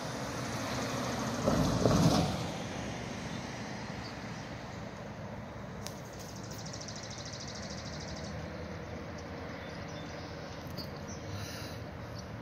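A road vehicle passes close by, a short rushing swell about two seconds in, over a steady outdoor rumble while a train is still far off.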